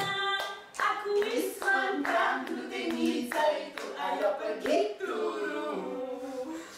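A woman singing into a microphone while a small group claps along in a steady beat, about two claps a second. The singing and clapping die down near the end.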